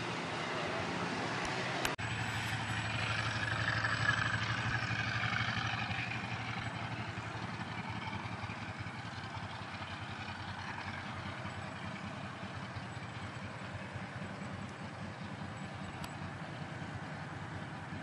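A Grumman TBM Avenger's Wright R-2600 fourteen-cylinder radial engine running at takeoff power during the takeoff roll and climb-out. It grows loudest about four seconds in, then fades steadily as the aircraft pulls away.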